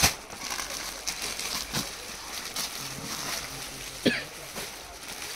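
Crinkling and rustling of plastic garment packaging and fabric being handled, with several sharp crackles.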